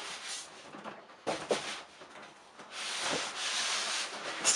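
Foam packing rasping and rubbing against the plastic housing of a Dremel 3D Idea Builder printer as it is slid out of its box. There is a short scrape about a second in, a longer steady rub in the second half, and a sharp knock near the end.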